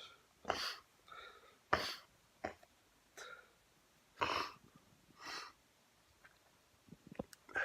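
A man in a sneezing fit: short, sharp sneezes a second or two apart, with breaths and sniffs between them.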